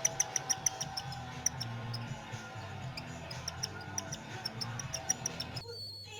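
Cockatiel chicks' food-begging calls: a rapid run of short high-pitched pulses, about five or six a second, that thins out after the first second, over background music. The sound changes abruptly near the end.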